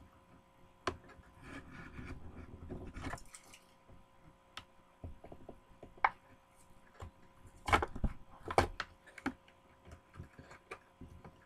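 Hot Wheels blister-card package being opened by hand: rustling and scraping of plastic and card with scattered clicks and knocks, including two sharp knocks about two-thirds of the way through.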